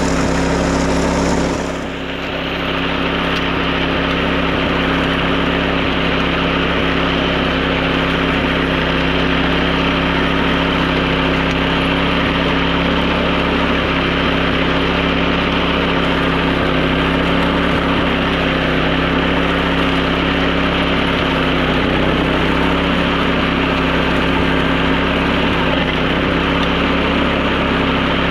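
Wing mower's small petrol engine running steadily while mowing grass, a constant engine hum with a brief dip in level about two seconds in.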